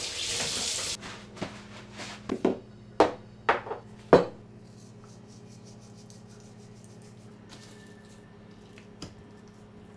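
A hiss that cuts off about a second in, then a run of sharp knocks as glass seasoning bottles are set down one after another on the kitchen countertop. After that only a low steady hum, with one light tap near the end.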